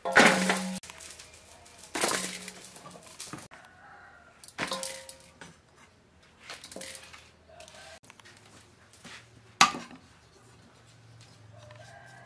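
Kitchen clatter as halved red peppers and their seeds are handled on a wooden board and tossed into an aluminium bowl: three loud clattering bursts in the first five seconds with a brief metallic ring, then lighter scraping and one sharp knife knock on the board near the ten-second mark.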